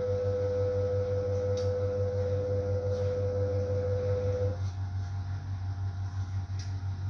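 Siemens Siwamat Plus 573 washing machine running with a pulsing low hum and a clear steady whine that cuts off about four and a half seconds in. A few light knocks come as the drum turns the laundry.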